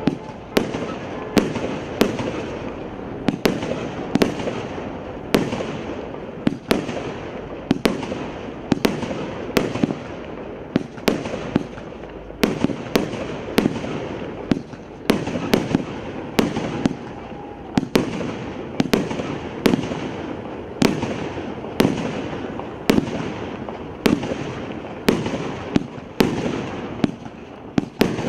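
An 84-shot fireworks cake (SU 002-84, 30 mm and 63 mm shots) firing in steady succession. Sharp bangs come about one to two a second, with a continuous hiss and crackle of the bursting stars between them.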